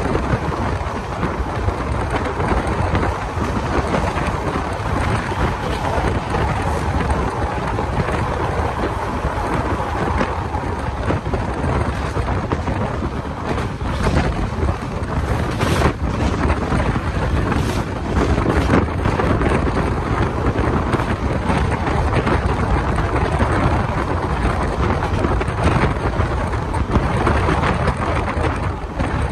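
Wind buffeting a microphone held out of a moving passenger train's window, over the steady rumble and clatter of the coach's wheels on the rails. A few sharper knocks come through about halfway in.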